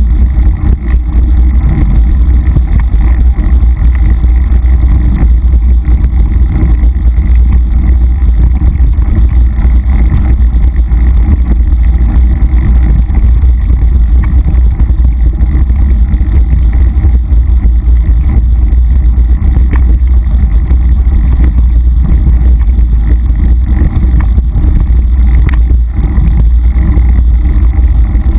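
Steady loud low rumble of wind buffeting and trail vibration on a camera riding along with a mountain bike at speed down a dirt singletrack, with a faint click or two from the bike near the end.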